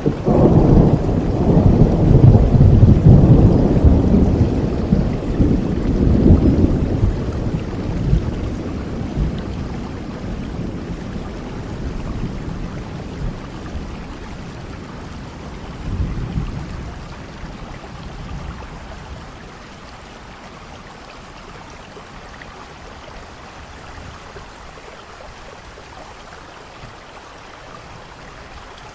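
Thunder rumbling over steady rain. A long, loud roll of thunder opens and fades over the first several seconds, a softer rumble comes about halfway through, and then only the rain's even hiss remains.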